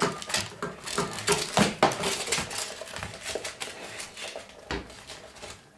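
Bernese mountain dog eating from a stainless steel bowl, its mouth and food clinking and rattling against the metal in quick, irregular clicks.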